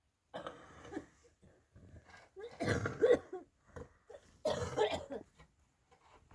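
A person coughing in three bouts, the middle one loudest.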